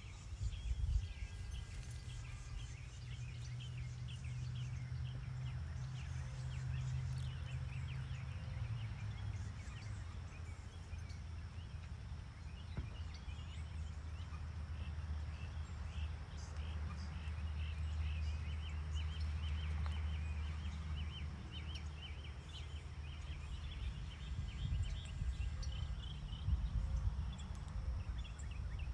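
Outdoor ambience: many short chirps high up over a steady low hum, the hum dropping in pitch about eight seconds in.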